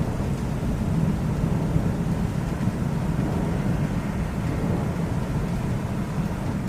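Low, steady rumble of rolling thunder.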